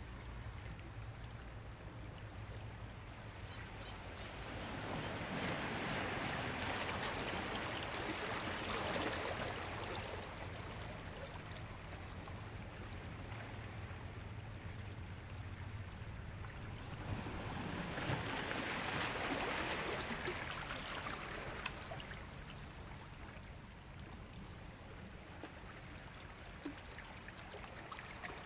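Ocean waves washing onto a shore. Two waves swell in, about five seconds in and again near the eighteen-second mark; each rises into a hiss of surf and then fades, over a steady low rumble.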